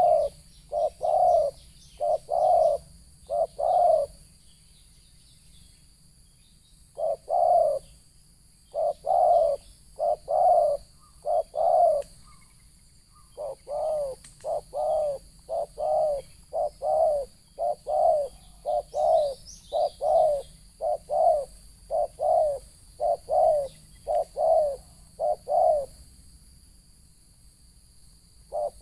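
Spotted dove (terkukur) cooing: runs of short, low coos in quick succession, broken by pauses of a few seconds, with the longest run lasting over ten seconds in the second half.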